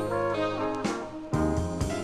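Big-band South African jazz with a brass section playing held, shifting chords over bass and drums, with a bass-and-drum accent about a third of the way in.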